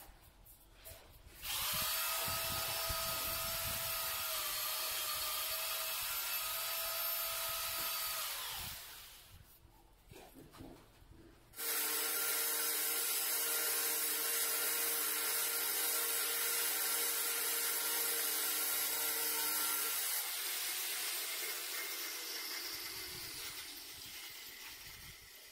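A power tool running in two long spells, each switching on sharply: about seven seconds, a short pause, then about eight seconds before it slowly dies away. It gives a steady whine over a hiss.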